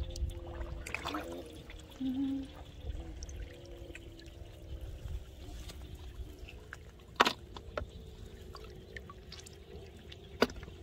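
Hands sloshing and dabbling in shallow muddy water while picking up snails, with two sharp clicks of snail shells knocking, about two-thirds of the way through and near the end.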